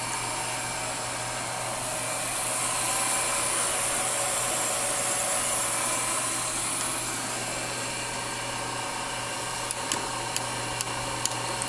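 ENCO 9x20 belt-drive bench lathe running steadily in reverse, its belts and change gears giving a steady whine of several tones. Near the end a light clicking starts, about two to three clicks a second, as the apron is moved: a clicking that comes only in reverse, which the owner thinks has to do with the brass tensioner inside.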